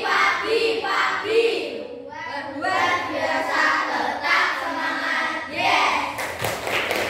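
A group singing a classroom chant together, led by a woman, with hand claps; a quick run of claps near the end.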